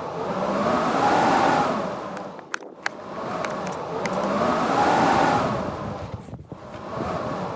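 Blizzard wind howling in gusts: each gust swells up with a rising, then falling whistle and dies away again, about every four seconds, with a few faint clicks in the lulls.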